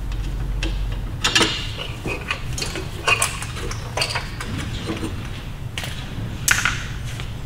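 Hand tools and metal car parts clinking and clanking as parts are taken off the car, with a few sharper metallic knocks spread a second or two apart over a low steady hum.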